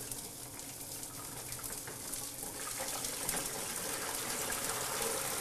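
Potato pieces deep-frying in an electric fryer's oil at 170 °C, the oil bubbling and hissing steadily and growing gradually louder as it comes to a vigorous boil around the fresh potatoes.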